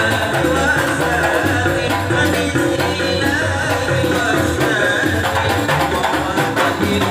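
Hadrah ensemble playing: rebana frame drums beating a steady rhythm under voices singing devotional verses, amplified through a PA sound system.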